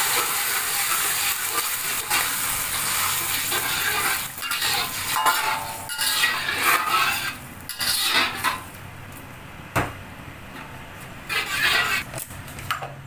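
Evaporated milk sizzling in hot butter in a stainless steel wok while a metal ladle stirs and scrapes against the pan. The sizzle fades about two-thirds of the way through, leaving a few separate ladle scrapes near the end.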